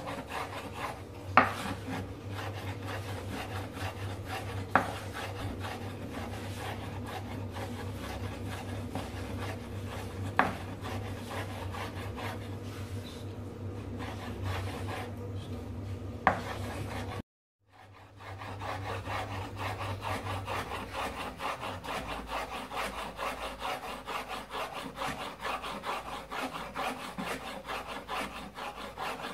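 Kitchen knife slicing tomatoes on a wooden chopping board with a light back-and-forth sawing motion. The blade rasps against the board in rapid, even strokes, with four sharper knocks of the knife on the board. The sound cuts out for an instant a little past halfway.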